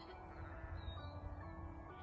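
Background music: a slow melody of held notes changing about every half second.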